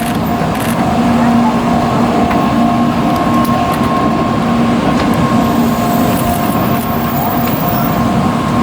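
Railway level-crossing warning bell ringing over and over, with its steady tones sounding over a continuous rushing noise.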